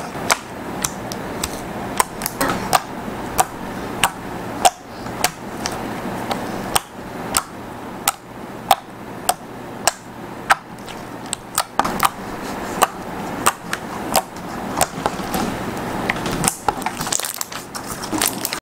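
Purple glitter slime being poked, pressed and kneaded by hand, giving sharp wet pops and clicks from trapped air, irregular at about one or two a second.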